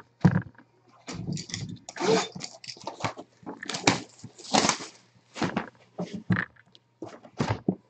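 Packing tape being torn and peeled off a sealed Panini Flawless briefcase box: a run of short, irregular rips and rustles with small handling knocks, over a faint steady low hum.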